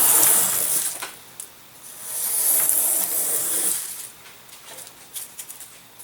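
Two long scraping strokes of a hand tool working along a model aircraft wing's leading edge to round it off, followed by a few light clicks and taps.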